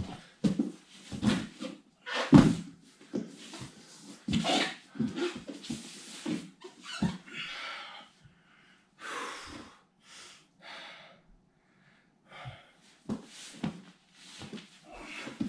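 A body rolling, shifting and thumping on foam puzzle mats during solo grappling drills: irregular soft knocks and shuffles, the loudest about two and a half seconds in, with hard breaths in between.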